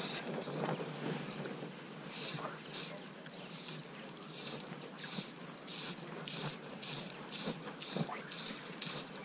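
Insects chirping: a steady high buzz, joined about two seconds in by a second chirp pulsing about twice a second, with a few faint ticks.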